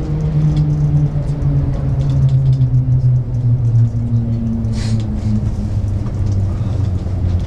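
Shanghai maglev train's hum heard inside the carriage, sliding steadily down in pitch over a low rumble as the train decelerates, with a short hiss about five seconds in.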